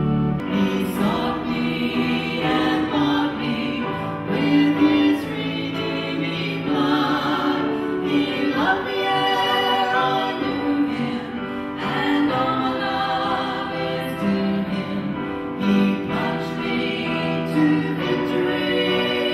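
A choir singing with instrumental accompaniment, music typical of a gospel worship service.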